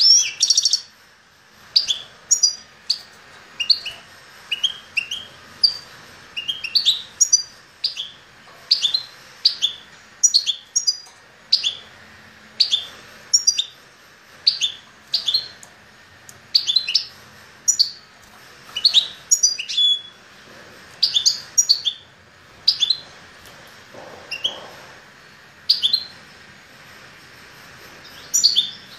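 Caged songbird chirping over and over in short, separate high notes, about one or two a second.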